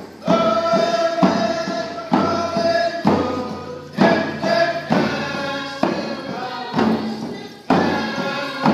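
Several frame hand drums struck together in a steady beat, about once a second, under a group of voices singing a Northwest Coast First Nations song in long held notes.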